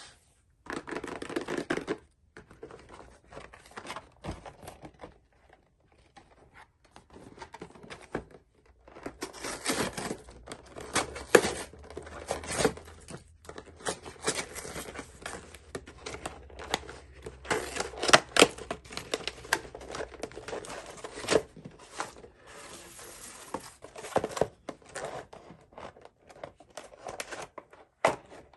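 Packaging of a Pokémon trading card box being opened by hand: plastic wrap and cardboard tearing and crinkling in irregular spells, with sharp clicks and short pauses between them.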